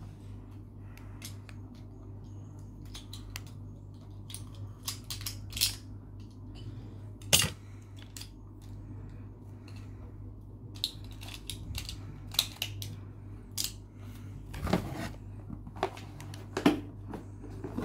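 Irregular plastic clicks, taps and rattles as Beyblade Burst tops and parts are handled and snapped together, over a steady low hum.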